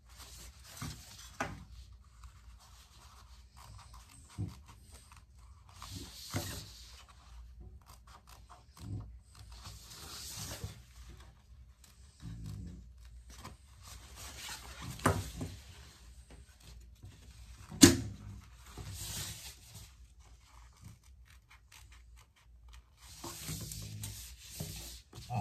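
Raincoat fabric rustling and rubbing in several swells as it is handled and trimmed with small scissors, with scattered light clicks and one sharper click about three quarters of the way through.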